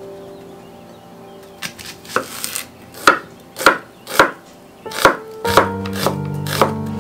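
Chef's knife slicing an onion on a wooden cutting board: a string of sharp chops, about one every half second, starting about a second and a half in.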